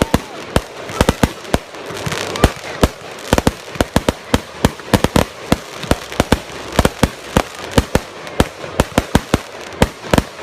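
Fireworks going off: a rapid, irregular run of sharp bangs, several a second, like a string of firecrackers.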